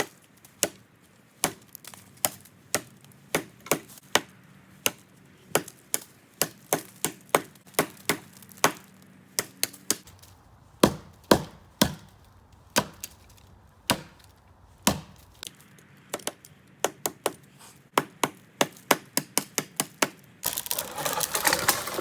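Origin Knives bushcraft axe chopping into the base of a dead standing pine trunk about four or five inches thick: a long, steady run of sharp wooden chops, about one to two a second. Near the end the chopping gives way to a noisy rustling crash as the tree goes over.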